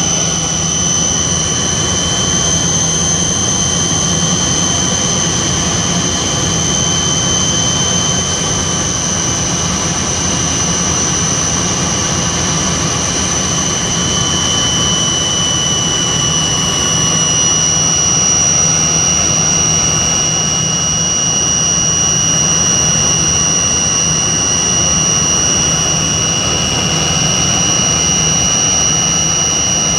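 Cabin noise of a Tupolev Tu-134B-3 airliner in flight: its two rear-mounted Soloviev D-30 turbofans run with a steady rush, a low hum and a high whine. The whine rises slightly in pitch about two seconds in and drops slightly about halfway through.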